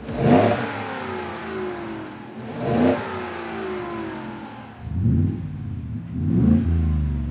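Ford F-150's 5.0L Coyote V8 free-revving through its exhaust: four quick rev blips about two seconds apart, each dropping back toward idle.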